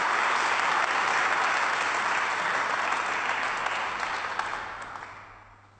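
Audience applauding, the clapping fading out over the last two seconds or so.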